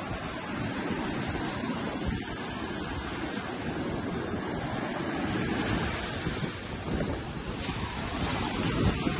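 Ocean surf washing on a beach, with wind buffeting the microphone.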